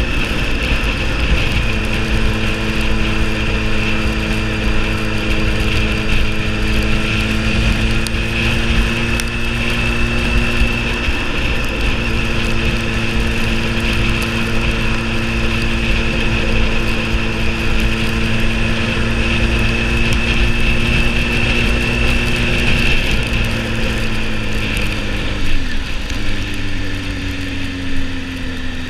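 Motorcycle engine running at a steady cruise under a constant low rush of wind, with a steady high whine alongside. Near the end the engine note falls as the bike slows.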